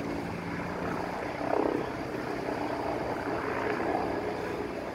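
Helicopter running steadily, its engine and rotor noise heard as an even drone.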